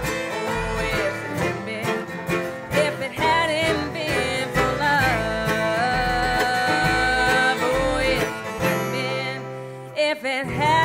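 Live bluegrass band of fiddle, banjo, mandolin, two acoustic guitars and upright bass playing an instrumental passage with no singing, the fiddle carrying long wavering notes over the picking.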